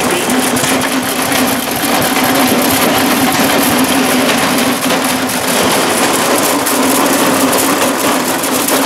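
McCormick-Deering 6-inch corn grinder crunching shelled corn, a dense steady crackle over a steady hum, with a McCormick-Deering M hit-and-miss engine running.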